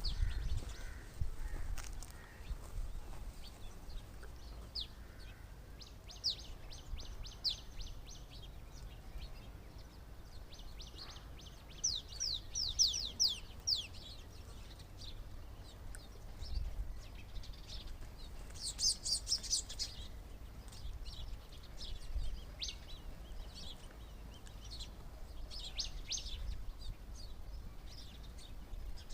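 Birds chirping: bouts of quick, high chirps in rapid series, clustered around 6 seconds in, 12 seconds in, 19 seconds in and near 26 seconds in, over a low, steady rumble.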